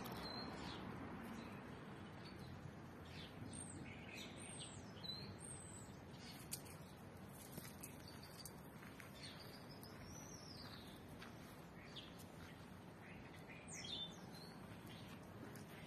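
Faint birds chirping: scattered short, high, gliding chirps, with a longer rising-then-falling whistle about ten seconds in, over a steady low hiss and a few light clicks.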